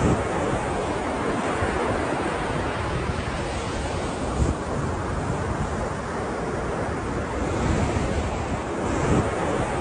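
Ocean surf washing continuously, swelling slightly a couple of times as waves break.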